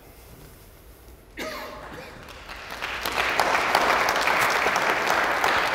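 Audience applauding: the clapping starts a couple of seconds in, swells, and stays at full strength to the end.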